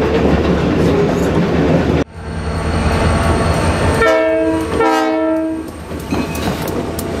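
A passing train rumbles steadily with wheels clacking, cutting off abruptly about two seconds in. Then a Western Maryland diesel locomotive leaving a tunnel rumbles and sounds its multi-note air horn in two short blasts, each under a second, about four and five seconds in.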